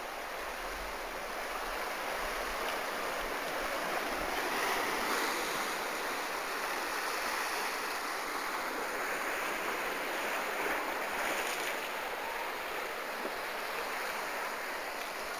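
Sea surf washing onto the beach: a steady hiss of waves that swells gently a few times.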